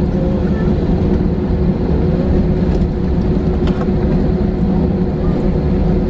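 Steady cabin noise of an Airbus A320 taxiing: a low engine rumble with a steady hum and a few faint ticks.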